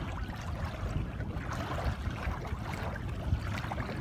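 Light splashing and sloshing of hands groping through shallow muddy water, over a low rumble of wind on the microphone.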